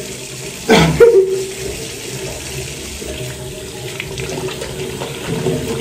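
Tap running steadily into a bathroom sink while hands rub a bar of soap under the stream. About a second in, a brief loud sound with a falling pitch cuts across it.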